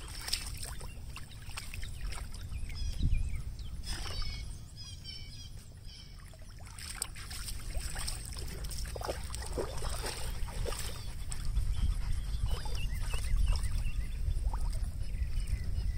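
Water splashing and sloshing lightly as huskies swim, over a steady wind rumble on the microphone, with a few brief bird chirps.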